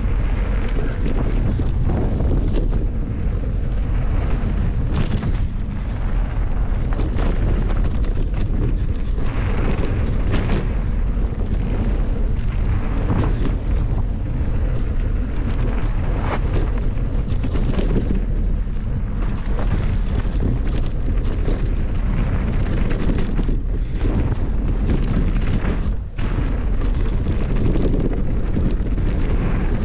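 Merida Big Trail 500 hardtail mountain bike riding fast down a dirt singletrack: steady wind rumble on the microphone, tyres rolling over dirt, and frequent short rattles and knocks from the bike over bumps.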